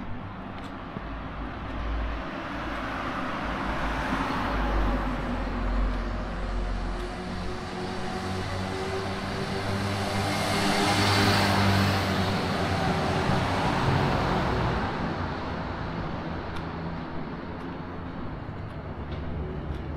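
Motor vehicles passing on a street, their engine hum and tyre noise swelling and fading: one about four to six seconds in, and a louder one around eleven seconds.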